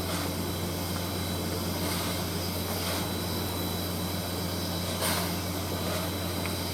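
Standing steam locomotive giving off a steady hiss of steam over a constant low hum, with a few brief surges in the hiss.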